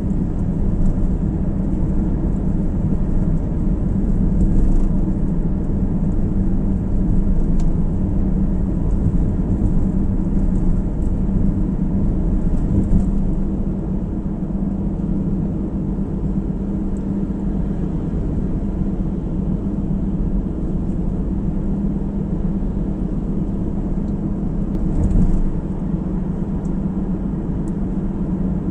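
A car driving along a road: a steady low rumble of tyres and engine, with a few faint ticks.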